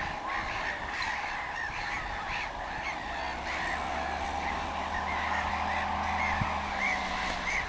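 A flock of gulls calling over and over, many short cries overlapping, above the steady drone of a John Deere tractor pulling a pneumatic seed drill across the field.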